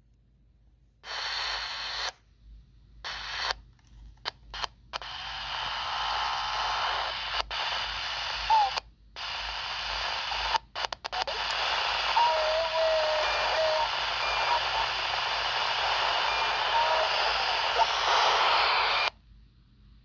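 FRS walkie-talkie speaker hissing with static as the squelch opens on an incoming signal. There are a few short bursts first, then a long stretch of hiss that cuts off abruptly near the end.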